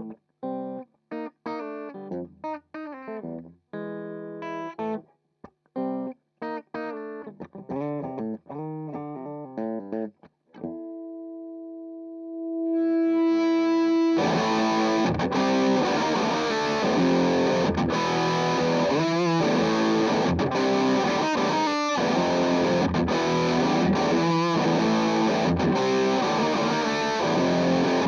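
Electric guitar through a JHS Angry Charlie distortion pedal, first played as short, separate chords with the guitar's volume rolled back so the pedal cleans up, then a held chord. About halfway through the level rises and it breaks into loud, dense, fully distorted playing.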